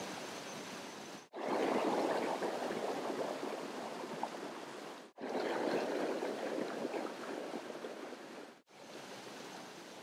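River water rushing and splashing over rocks in a steady rush. The sound cuts out sharply three times, about a second, five seconds and eight and a half seconds in, each time resuming louder and then easing off.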